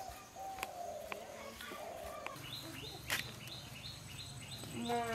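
A bird calling a quick series of short, falling notes, about three a second, starting a little after two seconds in. Before that comes a rough, drawn-out sound lower in pitch, with scattered light clicks throughout.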